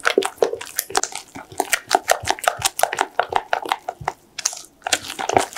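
A silicone spatula stirring thick cake batter in a glass bowl: a quick, irregular run of wet, sticky clicks and slaps as the batter is worked smooth, with a short pause about four seconds in.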